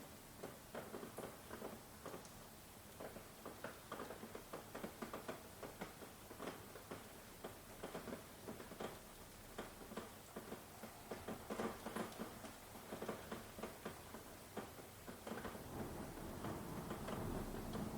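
Rain falling in separate, irregular drops that tap and patter several times a second over a soft steady hiss. A low rumble of thunder builds near the end.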